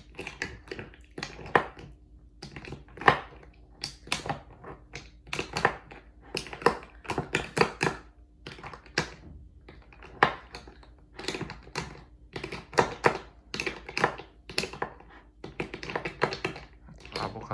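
Irregular taps and clicks of eating utensils against a cup or dish as the avocado is eaten, over a faint steady hum.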